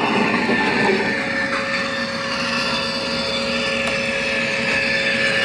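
LGB G-scale Krokodil Ge 6/6 I model electric locomotive running, its ESU LokSound decoder playing a steady electric-locomotive whir with a constant hum over the model's own drive.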